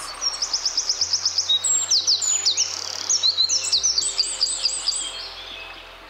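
Eurasian wren singing: a loud, rapid string of high, repeated notes and fast trills, changing phrase several times. The song fades near the end.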